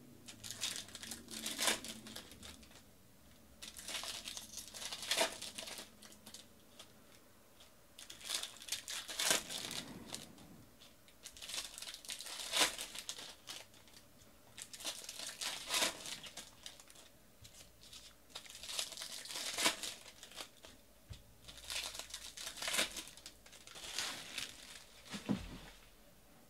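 Baseball card packs being opened and cards handled: crinkling and tearing of the foil pack wrappers and rustling of cards, in short bursts every second or two.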